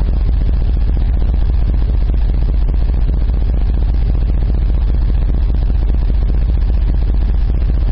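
Truck engine idling, heard from inside the cab: a steady low hum with no change in pace.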